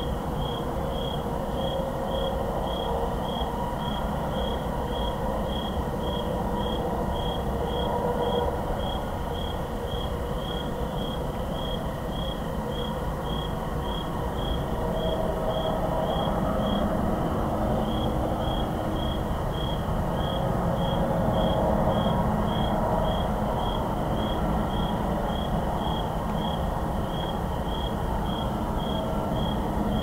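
A cricket chirping steadily, about two chirps a second, over a constant low rumble of distant highway traffic.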